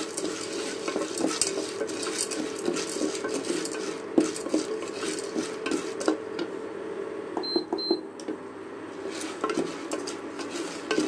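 A spatula stirring and scraping popcorn kernels in hot oil around the bottom of an aluminium pressure cooker, with many short scrapes and clicks of kernels against metal. About seven and a half seconds in, the stirring pauses and the induction cooktop gives two short beeps as its power is raised to high heat.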